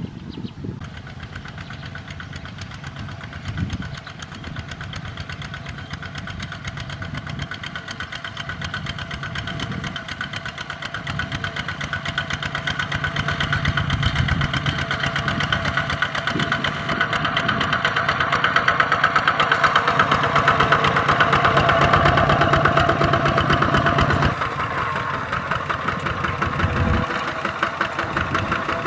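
Kubota ZT140 walking tractor's single-cylinder diesel engine running under load as it pulls a disc plough through dry soil, with a fast steady firing pulse. It grows louder as the tractor comes close, is loudest about two-thirds of the way through, then eases back a little.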